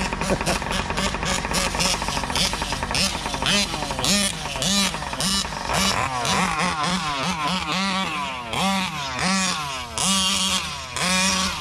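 Big-bore two-stroke gas engines of large-scale RC trucks revving hard, the pitch climbing and falling over and over as they are throttled on and off, with overlapping revs from more than one engine in the second half.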